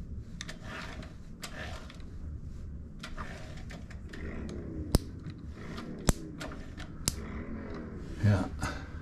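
Wrench turning a Honda CA160's crankshaft by hand at the nut on the ignition points cam, with metal scraping and rattling. Three sharp snaps come about a second apart midway through, and a louder knock follows shortly before the end as the wrench comes off. The engine is being rotated to check the ignition for spark.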